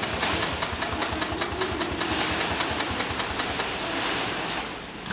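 Sailmaster 366-76-12 heavy-duty industrial zigzag sewing machine stitching thick sailcloth: a fast, even clatter of needle strokes. It stops shortly before the end.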